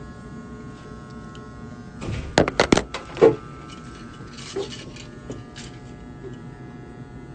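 Electric hair clippers buzzing steadily, with a short cluster of loud knocks and clatter about two to three seconds in as the phone is handled.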